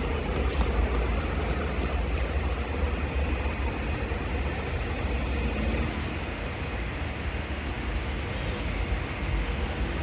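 Road traffic on a city street: cars and a motor scooter passing, a steady rumble of engines and tyres.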